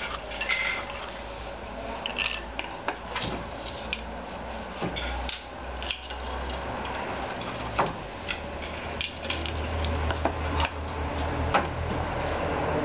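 Wooden hand loom being worked: irregular wooden clacks and knocks from the beater, shuttle and treadles, about one or two a second. A low hum rises underneath in the second half.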